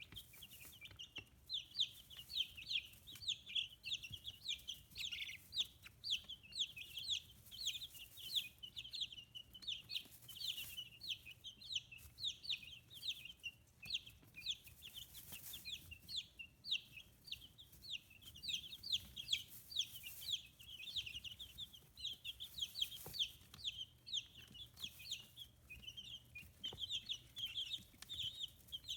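A brood of 15-day-old chicks peeping without pause: many short, high, falling chirps overlapping one another.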